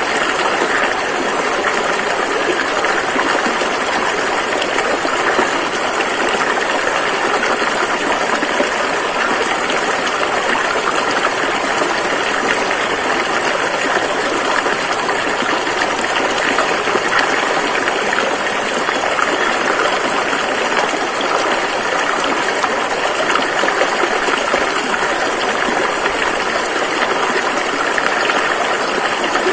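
Rushing river water flowing steadily, an even, unbroken rush with no rise or fall.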